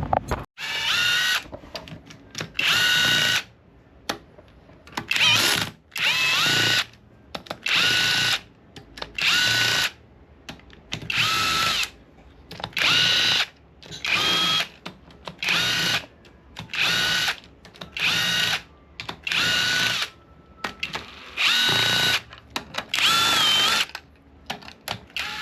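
Handheld power drill run in about sixteen short trigger pulls, each under a second or so, its motor whine rising in pitch as it spins up and stopping between pulls.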